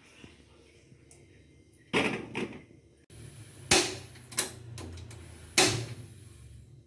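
A handful of sharp knocks and clacks, about five spread over four seconds, each with a short ring after it: household objects being set down or closed.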